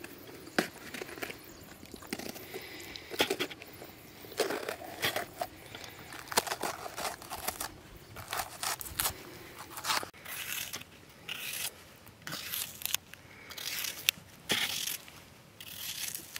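Irregular scraping and crunching of food being handled and worked, with sharp clicks and short rasping strokes at uneven intervals.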